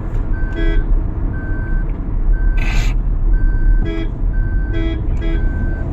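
Maruti Suzuki Grand Vitara's seat-belt reminder chime beeping steadily about once a second in the moving car's cabin, over road and engine rumble. It is the warning for an unfastened seat belt.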